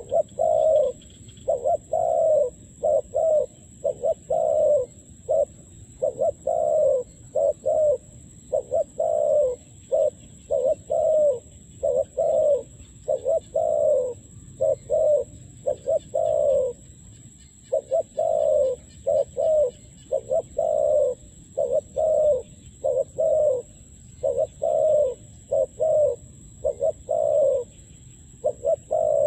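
Spotted dove, a trapping decoy, cooing over and over: a long run of short, low coo notes, about one or two a second, with hardly a pause.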